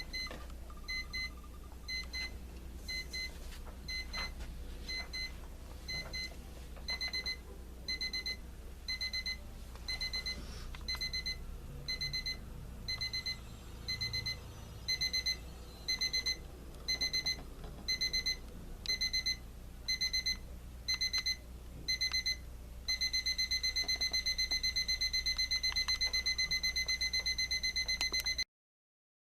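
Braun BNC002 travel alarm clock's crescendo alarm: short high-pitched beeps in pairs about once a second, growing louder as it goes. After about twenty seconds it changes to fast continuous beeping, which cuts off suddenly near the end.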